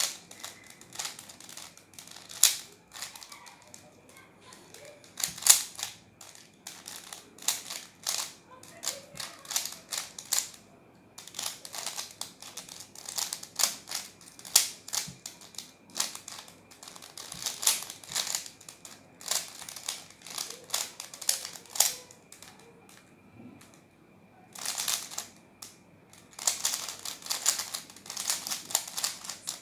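Oval cylindrical twisty puzzle (a cylinder-shaped Rubik's-type cube) clicking and clacking as its layers are turned quickly during a speed solve, in rapid runs of turns with brief pauses between them.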